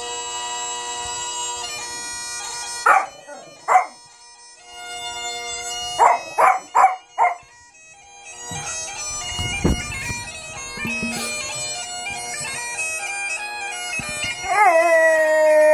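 Bagpipe music playing, broken by a small dog's barks, two and then four in quick succession, and a single thump partway through. Near the end a dog starts a long, steady howl along with the pipes.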